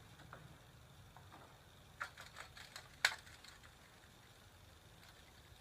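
A short run of light clicks and taps from hand tools being handled, starting about two seconds in, with the sharpest click about three seconds in; faint background hiss otherwise.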